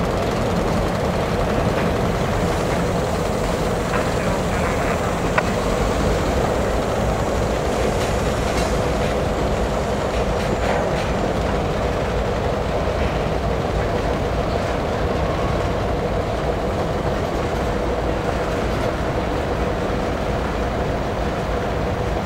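Freight train of covered hopper cars rolling slowly past at close range: a steady rumble of steel wheels on the rails, with an occasional faint click from the wheels over the rail joints.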